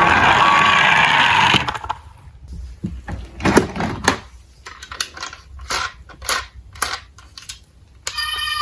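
Diecast toy cars clicking and clacking as they are handled, about a dozen sharp clicks spread over several seconds. Before them, a truck-engine noise with reversing beeps cuts off about a second and a half in. Music starts near the end.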